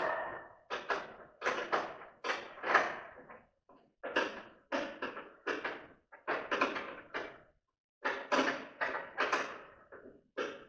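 Repeated knocking on the thin sheet-metal drums of a woodworking dust collector as they are fitted onto the blower housing, about three knocks a second, each ringing briefly, with a couple of short pauses.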